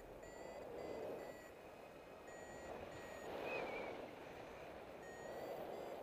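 Paragliding variometer giving its climb tone: runs of short, high beeps, signalling that the glider is still rising. Wind rushes steadily over the microphone underneath.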